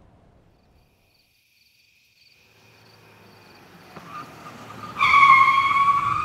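Sound effect of a car coming in out of near silence and braking to a stop, its tyres squealing loudly for about a second near the end, over faint crickets chirping.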